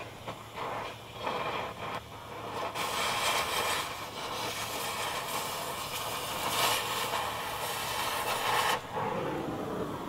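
Cutting torch blowing off old rusted sheet metal: broken, uneven hissing for the first few seconds, then a steady loud hiss from about three seconds in that cuts off suddenly just before the end.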